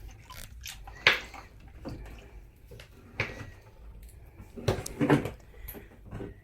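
A few sharp knocks and clunks of hard objects being handled and set down: one about a second in, another about three seconds in, and a louder cluster about five seconds in.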